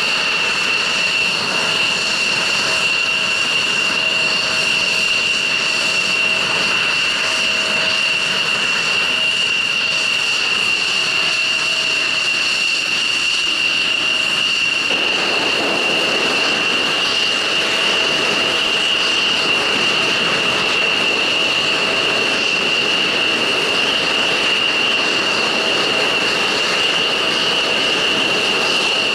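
F-16 fighter jets' turbofan engines running at ground idle: a steady high-pitched whine over a rushing hiss. About halfway through, the rush grows fuller.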